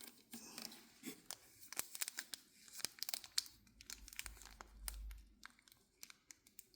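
Faint crinkling and scattered light clicks from cigars being handled and moved about in a humidor.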